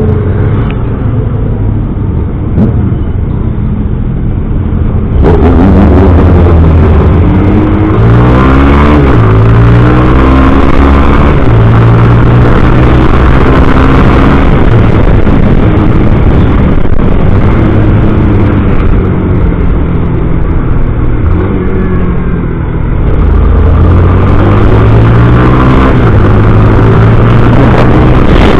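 Honda CB650's inline-four engine with a loud exhaust growl, its pitch climbing and dropping back several times as it accelerates and changes gear.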